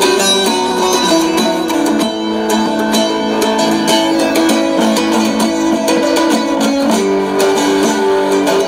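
Instrumental solo on a bağlama saz with guitar strumming underneath, a Turkish folk-style tune played back through a small portable speaker, thin in the bass.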